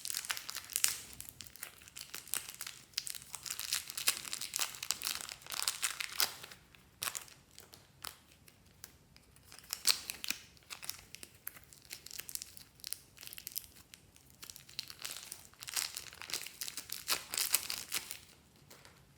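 Dense crinkling and crackling from slime being worked by hand with added bits mixed in, coming in uneven bursts with short pauses.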